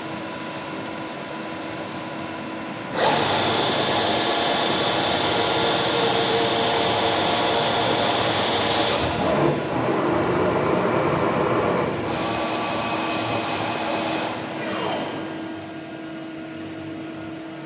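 Heavy workshop machinery running with a steady hum; about three seconds in a much louder mechanical run starts, eases off later, and near the end a falling whine winds down.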